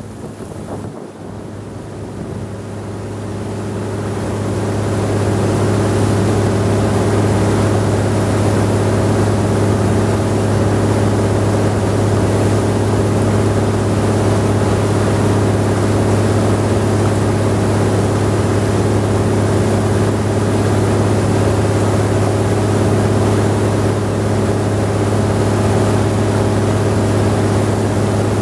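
The engine of a wooden riverboat running under way, a steady, loud, low hum. It grows louder over the first few seconds, then holds steady, with water and wind noise underneath.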